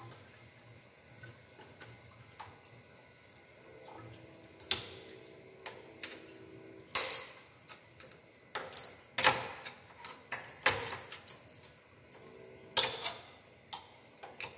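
Hand tools scraping, tapping and prying against a machined steel knife blank held in a steel machine vise. The sharp metal scrapes and clinks come at irregular intervals and are loudest in the second half.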